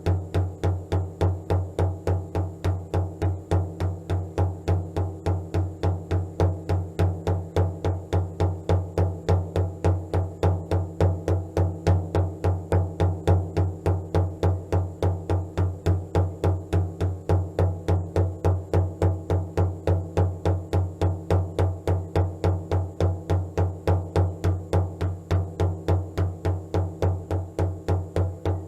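Meditation drumming: a single low-pitched drum beaten in a fast, even, unbroken rhythm that never changes pace.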